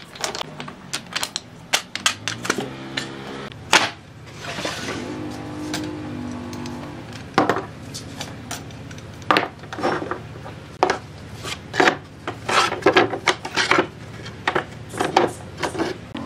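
Irregular sharp knocks and clatters of small hardwood blocks and then metal pipe-clamp parts and pine boards being handled on a workbench, over a faint steady hum.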